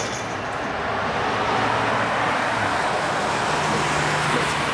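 An emergency rescue vehicle drives past with engine and road noise. A low engine note steps up in pitch about three and a half seconds in.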